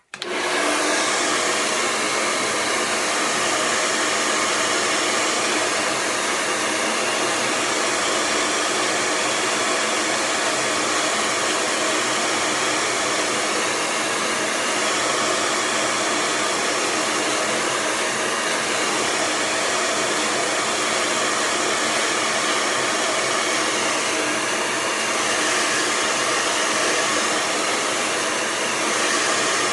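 Handheld hair dryer switched on and blowing steadily over wet hair.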